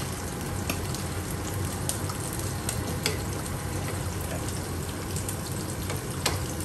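Spinach sizzling in a frying pan in its own released liquid as it is stirred with a wooden spatula, a steady frying hiss with now and then a sharp click of the spatula against the pan.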